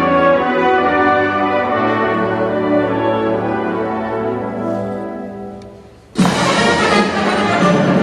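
Marching band brass holding sustained chords that fade away over a couple of seconds. A little after six seconds in, the full band comes back in suddenly and loud.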